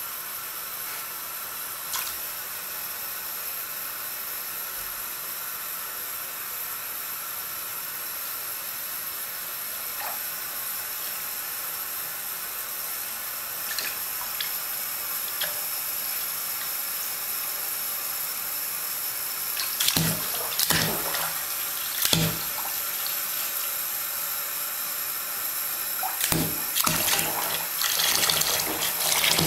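Bathtub tap running into shallow bath water, a steady splashing hiss. A Bengal cat paws at the water, adding a few sharp splashes around twenty seconds in and more near the end, where the water sound grows louder.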